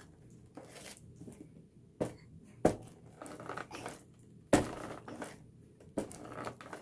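A cardboard advent calendar door being pressed and punched at: crinkling and tearing cardboard with a few sharp knocks, the loudest about two and a half and four and a half seconds in.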